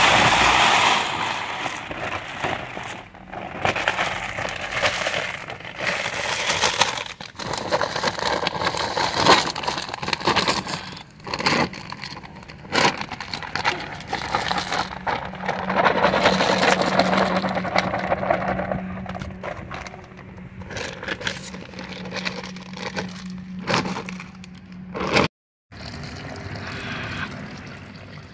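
Dry long-grain rice pouring from a plastic sack into a large metal pot: a dense rush of grains with many small clicks, rising and falling as the sack is tipped. Near the end, after a brief break, water starts pouring onto the rice.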